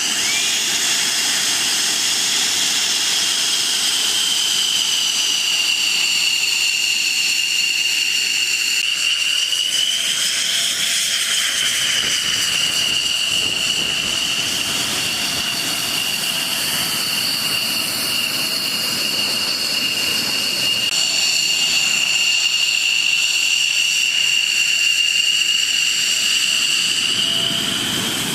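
Military jet engine running with a loud, steady high-pitched whine over a rushing noise. The pitch lifts briefly about ten seconds in and again near the end.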